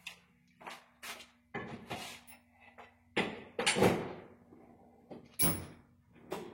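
A series of knocks and clunks, about five of them a second or so apart, the loudest a pair just past the middle.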